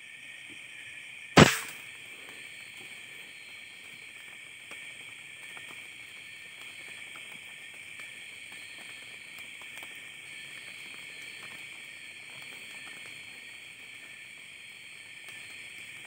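A single sharp shot from a scoped air rifle about a second and a half in, over a steady chorus of crickets and other night insects.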